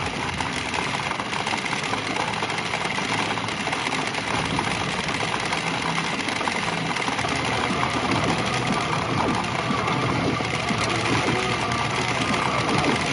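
Dense, steady clatter of pachinko balls streaming through a pachinko machine during a bonus payout run.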